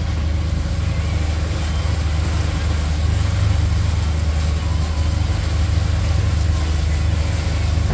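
Larson motorboat's engine running steadily at low speed, a deep even hum.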